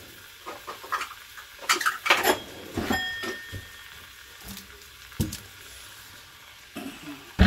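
Metal kitchen utensils clinking against pots: a few sharp clinks and knocks, one with a short metallic ring, and the loudest knock at the very end.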